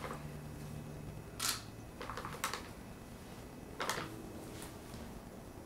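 A paper bag being tipped and shaken to pour a dry ingredient into a bowl on a kitchen scale: about four short, faint rustles a second or so apart.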